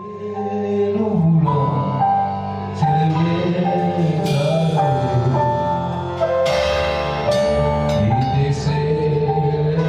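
Worship band playing an instrumental intro, fading in over the first second: sustained keyboard-like chords over a steady bass line, with two crashes about four and six and a half seconds in.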